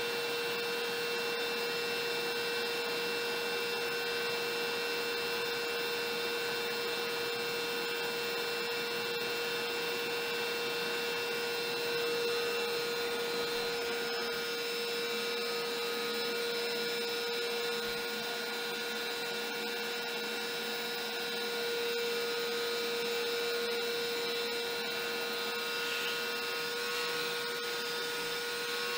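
Shop vacuum running steadily through the CNC's dust-collection hose: an even rush of air with a constant motor tone.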